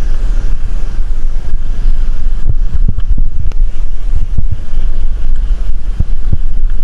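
Heavy wind buffeting the microphone of a rider on a moving scooter on a rough road: a loud, steady low rumble, with a few short knocks from bumps along the way.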